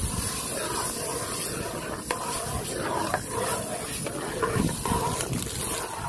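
Food sizzling in hot oil in a cooking pot over a fire, a steady hiss with a few sharp clicks of a utensil against the pot.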